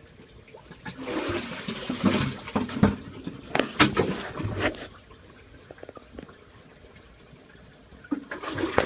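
Water splashing and sloshing at the bottom of a hand-dug, concrete-lined well as a worker moves and digs in it: irregular splashes for about four seconds, then quieter, with more splashing near the end.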